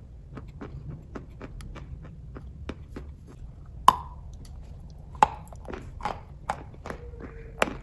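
Close-up chewing of kaju katli cashew fudge: a string of small wet mouth clicks and smacks several times a second, with two sharper clicks about four and five seconds in.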